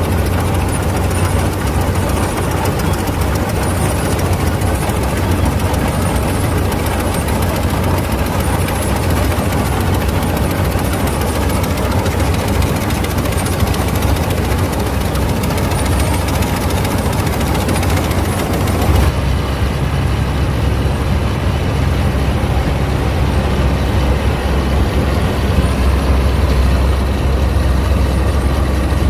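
Claas Mercator 50 combine harvester's diesel engine running steadily with a heavy low drone. The tone changes abruptly about two-thirds of the way through, the highs falling away.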